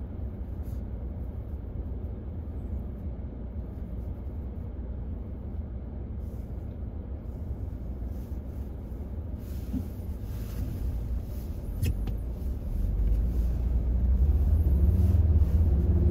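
Low, steady rumble of a car heard from inside the cabin while it waits in traffic. It grows louder about thirteen seconds in as the car pulls away.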